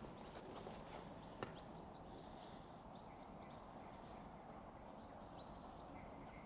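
Faint birds chirping: short high calls repeated every second or so over a low steady hiss, with a single sharp click about a second and a half in.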